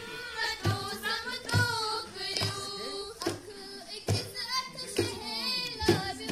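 Young girls singing a song together, accompanied by a hand drum struck on a slow beat, roughly once a second.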